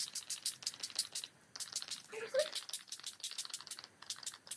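Finger-pump spray bottle of Distress Oxide ink spray pumped in quick succession, a run of short hissing spurts of mist at about five a second, with a brief pause about a second and a half in.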